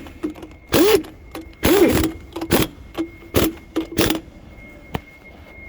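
Power impact wrench run in five short bursts on wheel lug nuts, its motor pitch rising and falling with each burst.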